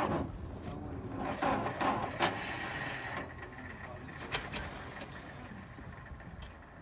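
Electric starter cranking a brass-era speedster's engine, which does not catch, with a few sharp clicks.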